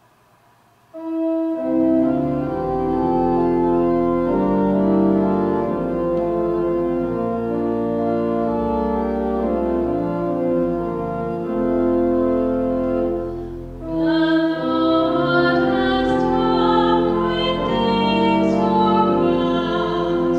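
Organ playing sustained chords as the introduction to a sung responsorial psalm, starting about a second in. After a brief dip about two-thirds of the way through, a singing voice comes in over the organ.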